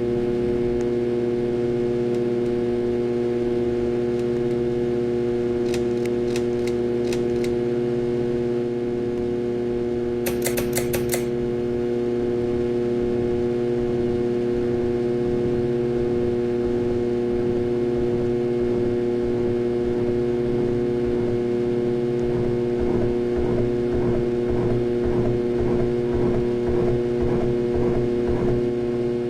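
Harbor Breeze Ocracoke ceiling fan running with a very loud, steady hum, which the owner puts down to a bad motor. Short runs of quick clicks come about 6 seconds in and again about 10 seconds in.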